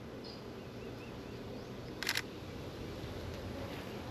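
Honeybees buzzing steadily around an open hive, with a short, quick run of sharp clicks about two seconds in.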